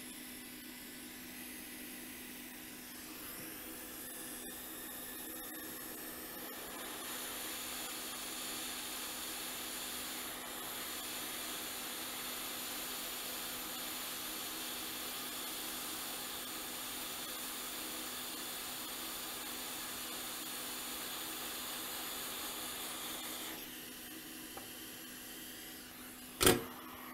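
Hot air rework station blowing steadily with a low hum while reflowing a new charger chip onto a logic board. The airflow drops a few seconds before the end, and a single sharp click follows.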